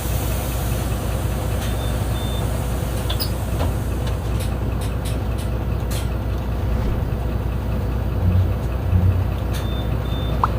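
Mercedes-Benz O-500U city bus engine running steadily with a deep hum, with scattered light clicks and rattles. A short double beep sounds twice, about two seconds in and again near the end, and two heavier low thumps come shortly before the end.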